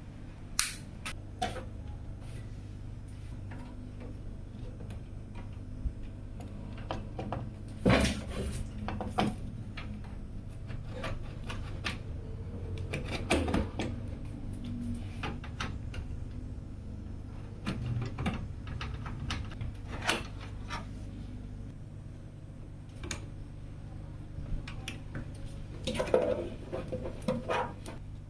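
Irregular clicks, taps and knocks of computer parts and screws being handled and fitted into a PC case, with a few louder knocks, over a steady low hum.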